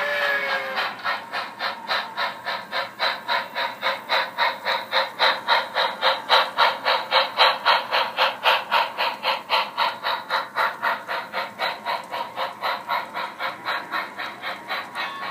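HO-scale model steam locomotive's DCC sound decoder playing a steady, rapid exhaust chuff of about four to five beats a second, growing louder toward the middle and then fading as it passes. A whistle tails off in the first second.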